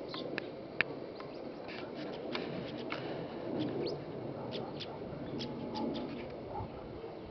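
Small birds giving short, high chirps and ticks at irregular intervals, with one sharp click about a second in, over a steady low background rumble.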